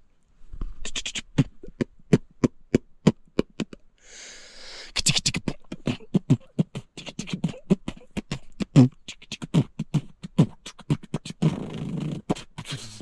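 Beatboxing: a man's mouth percussion, a steady beat of sharp clicks about two to three a second with vocal sounds mixed in. It is made for the sound-activated rock-light controller's microphone.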